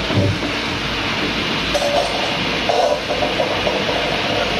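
Stuffed masala puri deep-frying in hot oil in a steel kadhai: a steady sizzle of bubbling oil.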